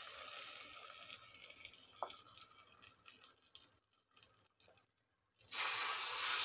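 Hot tempering of mustard seeds, dried red chillies and curry leaves in oil sizzling as it goes into sambar in a pressure cooker and is stirred with a steel ladle. The sizzle fades, a few ladle clicks follow, then a sudden loud burst of sizzling and splashing breaks out about five and a half seconds in.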